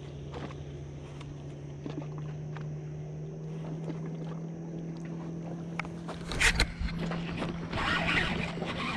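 Hookset on a fish with a baitcasting rod and reel: a steady low hum with a few faint ticks, then about six and a half seconds in a sudden loud burst of rod and handling noise as the hook is set, followed by dense noise of the reel being wound hard against the fish.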